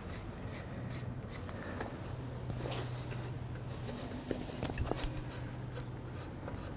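Faint rubbing and a few light clicks as the levelling screw on a satellite antenna tripod's leg is turned, over a steady low hum. The clicks come close together about four to five seconds in.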